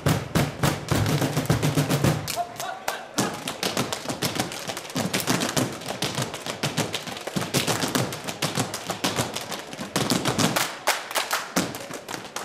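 A dance troupe's live percussion: fast, dense stomps and hand strikes on the floor and wooden boxes, several a second.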